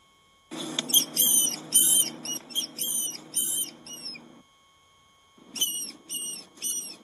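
Small rodent squeaking: short, high-pitched chirps about two to three a second. They come in a run of about ten, then a pause of about a second, then three more.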